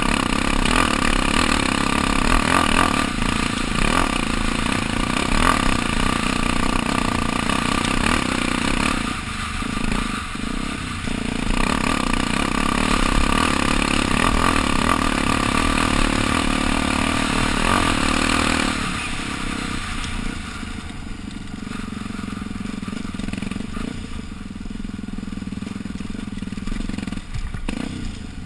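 Dirt bike engine running under throttle while ridden over rough grassy ground, its pitch rising and falling with the throttle. It eases off briefly about nine seconds in and runs quieter through the last third.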